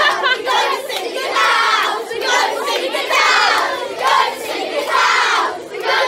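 A roomful of children chanting together, loud, in repeated phrases about a second apart.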